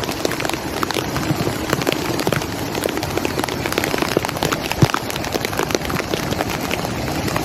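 Heavy monsoon rain pouring down over a rushing flood torrent: a steady hiss of water dotted with many sharp drop hits close by, the strongest about five seconds in.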